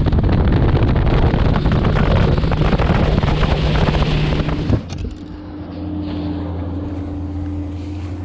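Motorboat running at speed, with wind rushing over the microphone; about five seconds in the sound drops abruptly to a quieter, steady engine hum.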